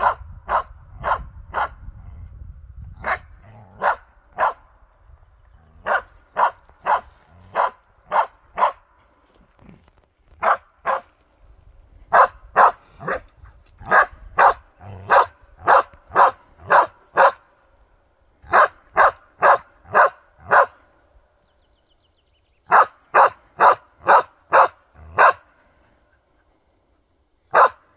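Karelian bear dog barking steadily at a moose decoy, the stand-barking a moose dog uses to hold a moose at bay. Sharp, evenly spaced barks come about two to three a second in runs of several, with brief pauses between runs.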